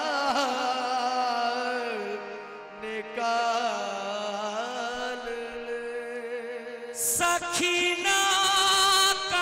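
Qawwali singing: a male voice drawing out long, wavering notes over a steady harmonium drone. About seven seconds in, percussion comes in and the music grows louder.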